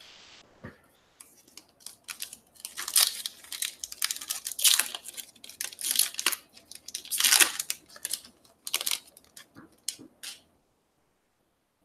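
Foil wrapper of a Topps Stadium Club baseball card pack being torn open and crinkled by hand: a run of crackling rips that starts about a second in and stops shortly before the end.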